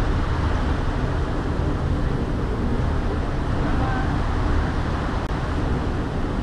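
Steady low rumble and wash of a ferry under way: its engine and the churning wake water behind the stern.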